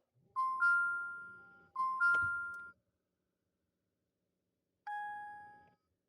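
2019 Jeep Compass dashboard warning chime: two quick two-note dings, each stepping up in pitch, then a single ding about three seconds later, with no starter cranking or engine running, as the car fails to start.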